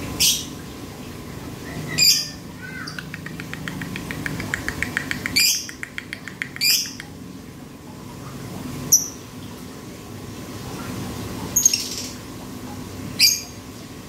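Male Fischer's lovebird in breeding condition, giving about seven sharp, shrill calls. Between the first few calls comes a fast run of even clicking ticks, the 'ngetik' that sounds like lato-lato clacker balls, a sign of a male over-excited by breeding urge.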